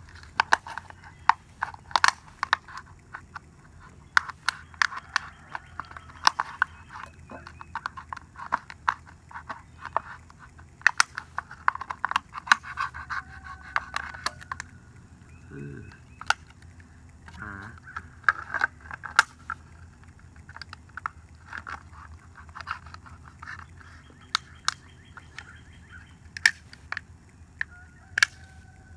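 A knife cutting and scraping through a thin plastic water bottle at the hard plastic by the neck, the plastic crackling and crinkling with many sharp clicks.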